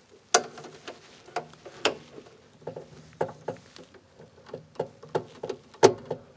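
Irregular clicks and taps of an insulated ground wire and a screwdriver knocking against a metal electrical service panel as the wire is routed and fastened. The sharpest clicks come just after the start and near the end.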